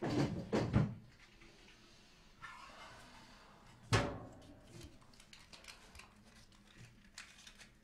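Things clattering as a hand rummages in an open kitchen drawer, several sharp knocks in the first second, then a single louder knock about four seconds in.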